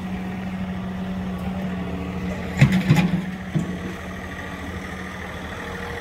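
John Deere 3046R compact tractor's three-cylinder diesel engine running steadily as it pulls a box blade over gravel, with a brief loud clatter about halfway through.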